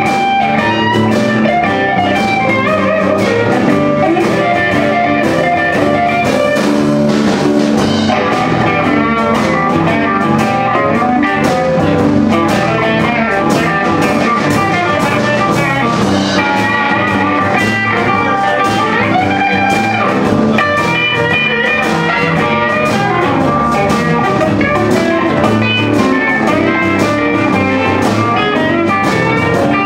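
Live electric blues band playing: electric guitars over keyboard and a drum kit, loud and steady.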